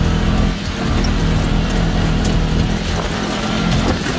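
ATV engine running steadily under way, with wind and trail noise.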